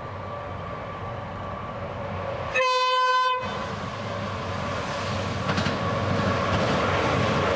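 Diesel freight locomotives approaching, their engine drone growing steadily louder. About two and a half seconds in, the lead CSR class locomotive sounds its horn in one short blast, the loudest sound here. Rumble and wheel clatter build after it.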